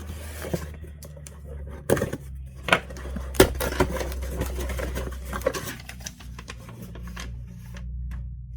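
Packaging and cables being handled: rustling with scattered clicks and knocks, the sharpest about two, three and three and a half seconds in, over a steady low electrical hum.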